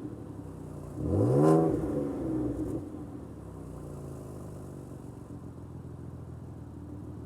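Ford Taurus Police Interceptor V6 running through its true dual exhaust with clamp-on tips: one quick rev about a second in that climbs and drops back, then a steady idle.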